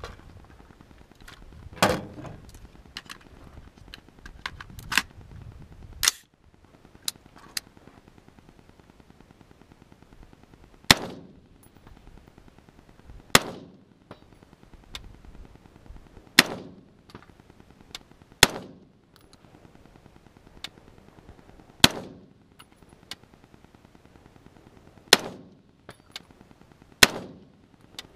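Smith & Wesson M&P15 AR-15 rifle: a few sharp metal clacks as it is handled, then single shots fired one at a time, seven in all, one every two to three seconds, each with a short echo.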